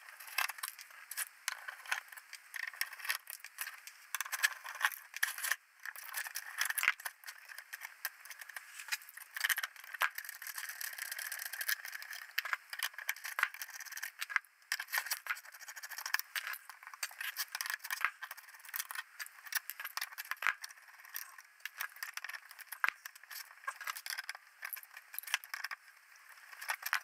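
Small hand tools scraping, clicking and rattling against a circuit board and its metal chassis as the board is worked loose from an avionics unit: irregular, quick clicks and scrapes throughout.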